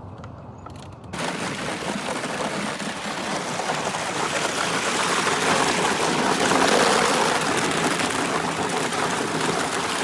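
Thin overnight skin of lake ice breaking against a moving canoe's hull: a dense, continuous crackling and crunching that starts suddenly about a second in and grows louder toward the middle.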